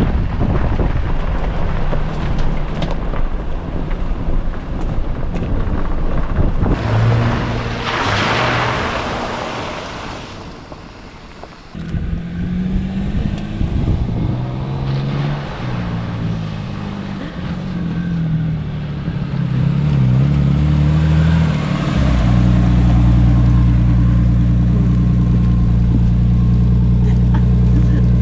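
Jeep driving on a dirt backcountry trail: engine running under wind and rough road rumble, dipping briefly about ten seconds in, then an engine note that changes pitch and settles to a steady run for the last six seconds.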